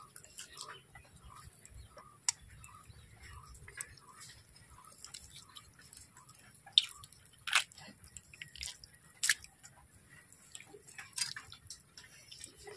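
Wet clicks, squelches and scrapes of a blade cutting up a skinned cuchia eel, with several sharper knocks of the blade in the second half.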